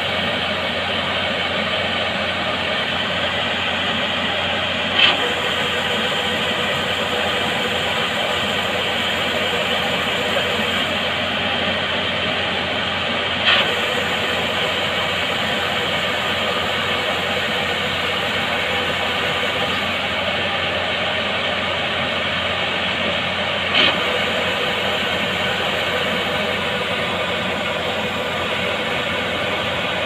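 Yanmar YH850 rice combine harvester running steadily while its unloading auger discharges threshed grain into sacks: a loud, even machine drone. Three brief sharp sounds cut through it, several seconds apart.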